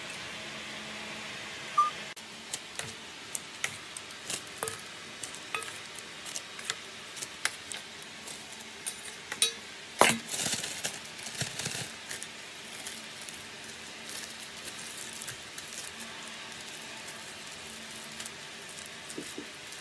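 Kitchen handling sounds: a metal spoon clinking and tapping against a stainless steel bowl and plastic ice-pop moulds in a string of sharp clicks. There is one louder clatter about ten seconds in, followed by a couple of seconds of plastic bag rustling, then quieter handling.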